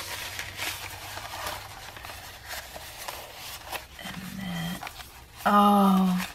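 Rustling and crinkling of a bundle of rolled old paper pages being unrolled and smoothed flat by hand. A short low hum about four seconds in, then a loud, drawn-out exclaimed 'Oh' near the end.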